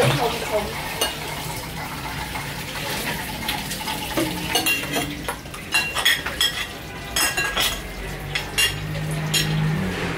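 Metal spoons clinking and scraping against ceramic plates and stainless steel bowls while people eat: a string of irregular, light clinks.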